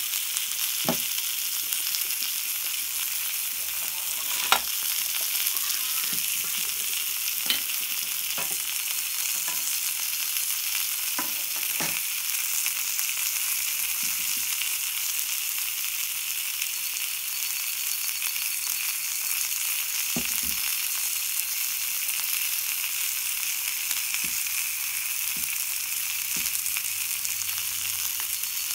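Aluminium mess tin of freshly cooked rice being opened and the rice loosened with wooden chopsticks: scattered light knocks and scrapes, the sharpest clack about four and a half seconds in, over a steady hiss.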